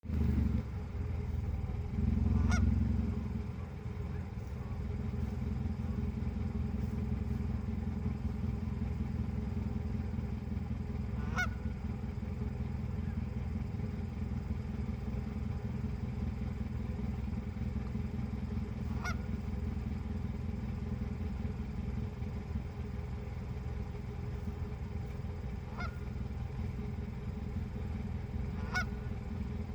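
Canada goose honking: five single short honks a few seconds apart. Under them runs a steady low rumble, loudest near the start.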